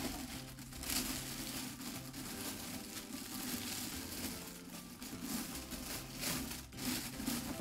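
Thin plastic biohazard bag crinkling and rustling continuously as it is worked down and fitted inside a trash can as a liner.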